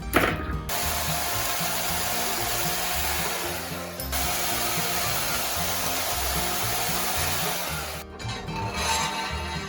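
Steady, harsh hissing noise of a metalworking tool on rebar, with a faint steady tone in it; it breaks off for a moment about four seconds in and stops about eight seconds in. Background music plays underneath.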